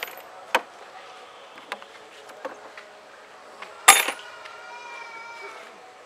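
Small metal parts of a motorcycle's handlebar clamp clicking as they are handled, then a sharp metallic clank about four seconds in that rings on for a second and a half, as a removed clamp piece or bolt is set down on metal.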